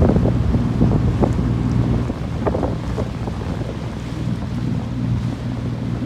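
Motorboat engine running steadily with a low hum, under wind buffeting the microphone. Water splashes against the hull in short slaps, mostly in the first few seconds.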